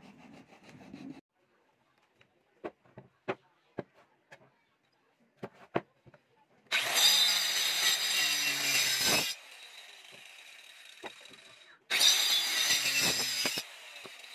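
Handheld electric circular saw cutting through a hardwood leg blank in two loud cuts, the first about two and a half seconds long and the second shorter; between and after the cuts the motor keeps running with a quieter, steady high whine. Before the cuts there are only a few faint clicks and taps.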